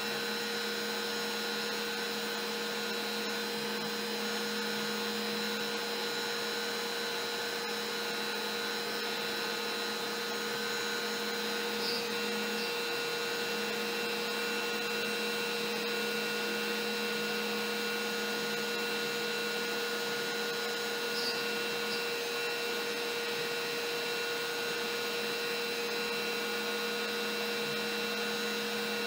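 Compact router on a LowRider CNC v3, running at its lowest dial speed with a single-flute upcut bit milling MDF: a steady motor whine over the noise of the cut.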